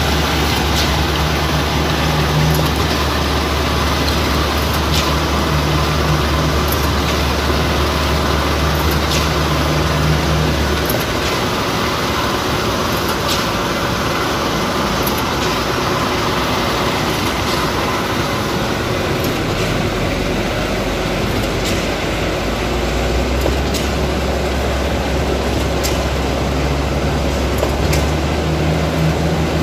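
Diesel engine of a truck-mounted concrete pump running steadily while pumping concrete, with a short sharp clack about every two seconds. The engine's drone changes about ten seconds in and shifts lower later on.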